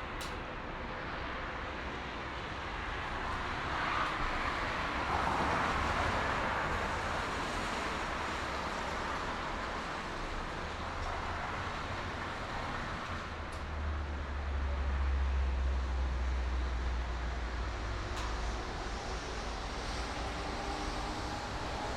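Highway traffic at night: a continuous rush of passing vehicles and tyre noise. One vehicle swells past about four to seven seconds in, and a deep low rumble builds and fades again later on.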